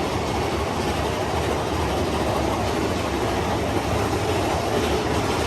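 Big Thunder Mountain Railroad mine-train roller coaster running along its track, heard from on board: a steady rumble of the train's wheels on the rails.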